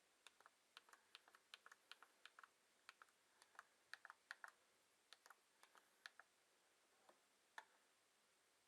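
Small keys of a Rii mini Bluetooth keyboard clicking faintly as someone types, an irregular run of sharp key presses that stops about a second before the end. The keys make a bit of a racket for such a small keyboard.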